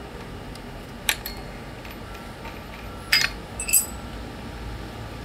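Light metallic clinks of the angle grinder's flange nut, pin spanner and grinding disc being handled and set down: one about a second in, then two or three more around three seconds in.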